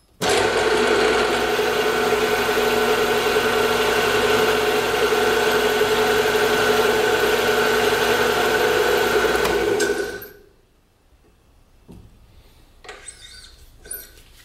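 Benchtop milling machine spindle running with a boring head, taking a boring pass in an aluminium bearing block: a steady hum that starts abruptly and then winds down and stops about ten seconds in. Near the end come a few faint clicks.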